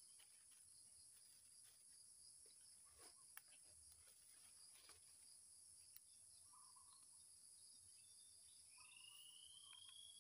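Faint, steady, high-pitched chorus of insects, with a few soft clicks and rustles of leaf litter and plastic being handled. A single rising whistle comes near the end.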